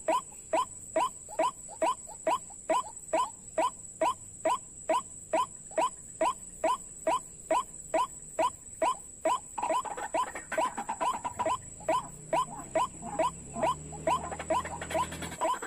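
White-breasted waterhen calls: a fast, very regular series of short rising 'kru-ak' notes, about two and a half a second. From about ten seconds in, a second, less regular series of the same calls overlaps the first.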